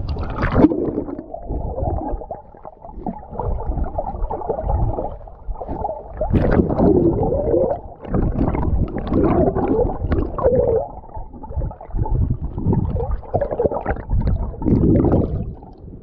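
Muffled gurgling and sloshing of sea water, heard with the microphone in the water, coming in irregular surges.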